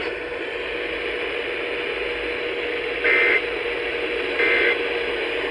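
Radio channel hiss with a faint steady hum, then two short warbling digital data bursts about a second and a half apart: the Emergency Alert System end-of-message (SAME 'NNNN') code that closes an alert.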